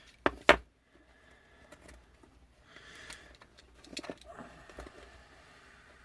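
Small hand tools and parts handled at a workbench: two sharp clicks about half a second in, then faint scattered clicks and rustling.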